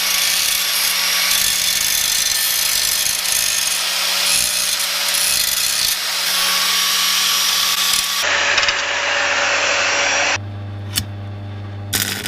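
Grinder running against steel, grinding down a freshly welded exhaust pipe joint, with a steady motor whine under the grinding noise. The sound changes abruptly about eight seconds in, and about ten seconds in it drops to a quieter low hum with a single click.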